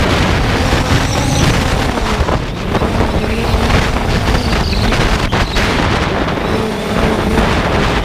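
Strong wind buffeting the microphone in a continuous rumble, with the faint steady hum of a 3DR Solo quadcopter's motors and propellers underneath.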